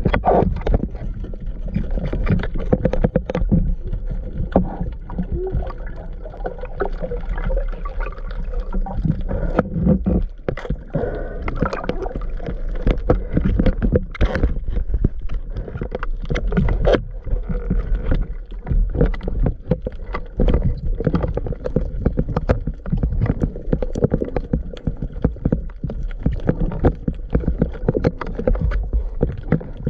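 Underwater camera audio during a spearfishing dive: a steady muffled rush of water against the camera, dotted throughout with many short clicks and crackles.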